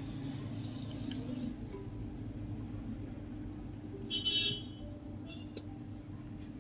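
A plastic squeeze bottle squirting liquid, a short hiss about four seconds in, over a steady low hum, with a small click or two of handling afterwards.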